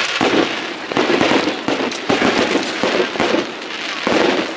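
Fireworks going off in quick succession: a continuous run of bangs, pops and crackles from rockets and shells bursting close together.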